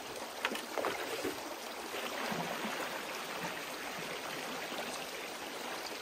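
Creek water rushing steadily, with a few light knocks in the first second or so.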